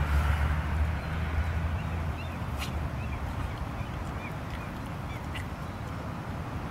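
A low rumble fades out over the first two seconds, then a bird calls in a run of about eight short, high chirps, with a couple of sharp clicks among them.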